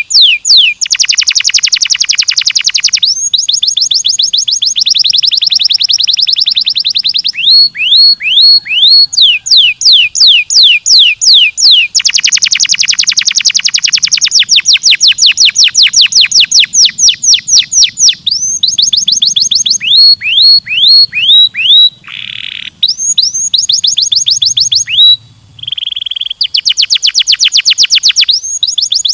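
Domestic canary singing continuously: long runs of rapidly repeated, high sweeping notes, several dense fast trills, and two short buzzy notes near the end.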